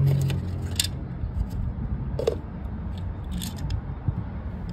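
Red plastic party cups being handled and turned over on concrete: a scatter of light clicks and scrapes as the plastic knocks together and on the ground, over a low background rumble.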